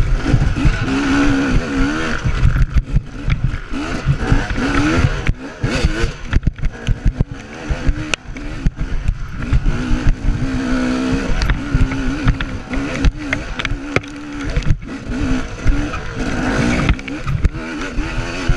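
Dirt bike engine revving up and down over and over as it is ridden hard, with heavy wind rumble on the chest-mounted microphone and frequent knocks as the bike bounces over rough ground.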